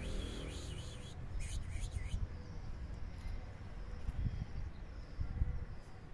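Outdoor wind rumbling and buffeting on the microphone, with a few brief high chirps about one and a half to two seconds in.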